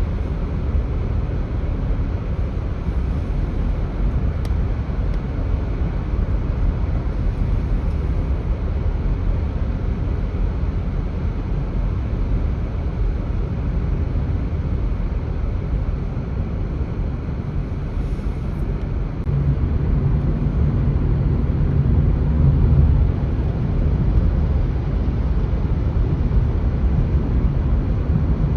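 Steady low rumble of outdoor background noise with no clear single event. A deeper hum comes up somewhat louder about two-thirds of the way in.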